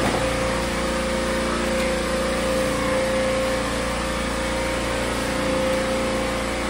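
Pressure washer running steadily with a constant motor hum and whine, its water jet hissing against a wet concrete floor and metal wall.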